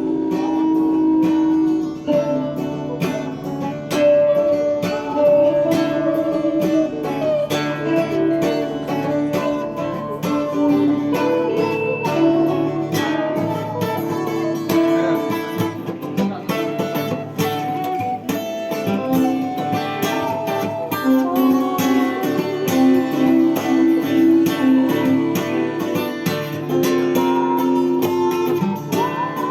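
Guitar music: plucked and strummed guitars playing a continuous song passage over a steady low bass line.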